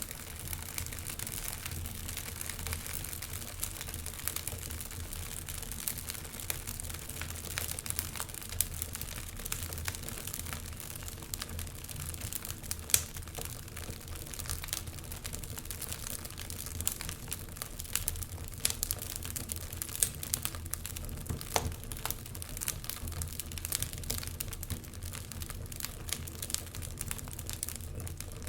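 Wood fire crackling in a fireplace, with dense irregular snaps and pops and one louder pop about halfway through.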